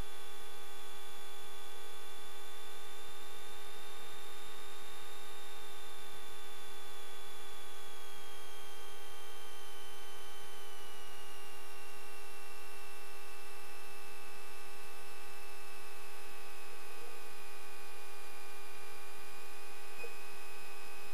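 Steady electrical hum and whine from a light aircraft's headset intercom audio feed, with a high whine that slowly falls in pitch over about ten seconds in the middle.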